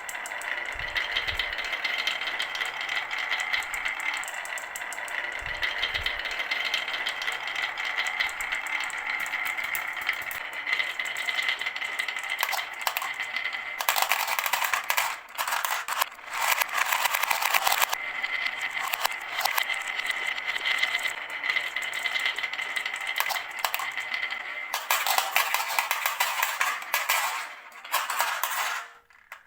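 Marbles rolling and clattering down a marble run, a dense, continuous rattle of many small clicks. It gets louder for a few seconds around the middle and again near the end, then stops abruptly.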